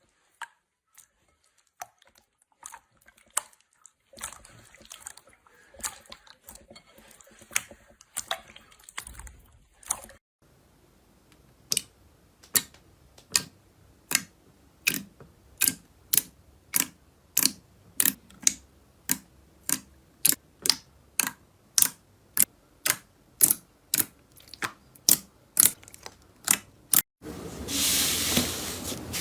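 Slime being played with by hand: scattered clicks, then a few seconds of dense crackling, then a long run of crisp clicking pops about twice a second. Near the end it changes abruptly to a louder, continuous crinkling.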